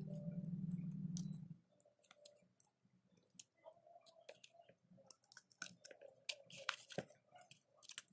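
A steady low hum cuts off abruptly about a second and a half in. A run of small, irregular clicks and light taps follows, like small parts and tools being handled.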